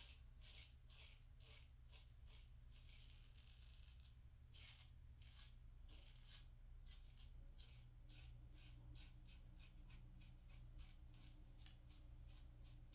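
Single-edge safety razor with a GEM PTFE blade cutting through lathered stubble in repeated short strokes, a faint crisp scraping about one or two strokes a second.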